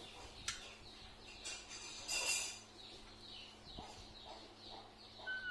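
Faint bird calls in the background: a quick falling chirp repeated about three times a second, with a short rustle about two seconds in.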